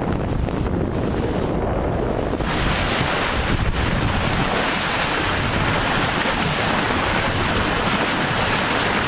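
Wind buffeting the microphone and water rushing and splashing along the hull of a sailboat moving fast through choppy water. About two and a half seconds in the sound turns hissier as the bow wave and spray come to the fore.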